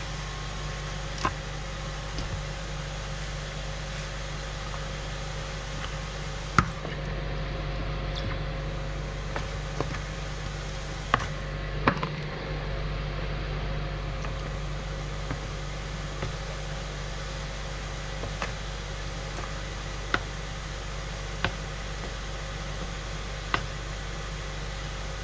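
Wooden spoon knocking and tapping against a mixing bowl now and then while chicken drumsticks are stirred in barbecue sauce, a dozen or so sharp clicks over a steady background hum.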